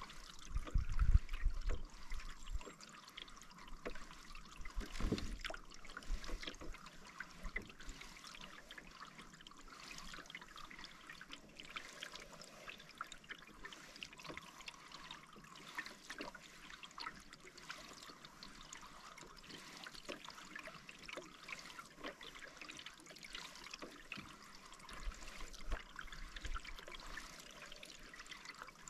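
Water trickling and splashing in small ticks, with low knocks about a second in and again about five seconds in.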